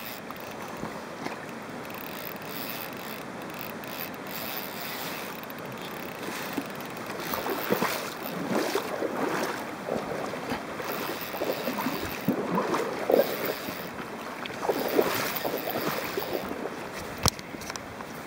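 Fly reel spinning against its drag as a big steelhead runs, pulling backing off the spool. The sound comes in uneven surges, strongest past the middle.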